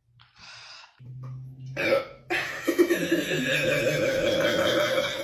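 A person burping: a few short, faint sounds, then one long drawn-out burp lasting about three seconds, starting a little past two seconds in.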